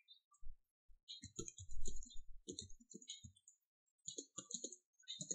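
Computer keyboard being typed on: soft, quick runs of key clicks in two bursts with a short pause between them.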